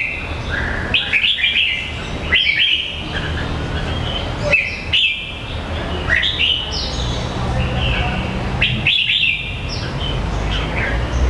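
Jambul (red-whiskered bulbul) singing a run of short, lively phrases of quick chirps and falling whistled notes, repeated every second or two, over a steady low hum.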